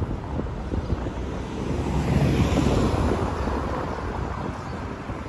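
Wind buffeting the action camera's microphone while cycling along a city street, over a steady traffic rumble. A car passes about two seconds in, swelling and then fading.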